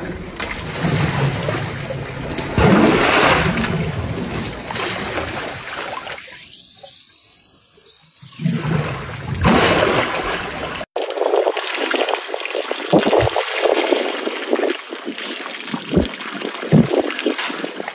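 Water splashing and trickling as an African elephant drinks, dipping its trunk in the water and lifting it to its mouth with water running off. There is a sudden short break about eleven seconds in, and after it the sound is thinner and more splashy.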